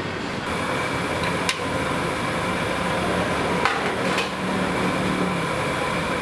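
Three sharp knocks of a hard object striking a hard surface, over a steady background hum.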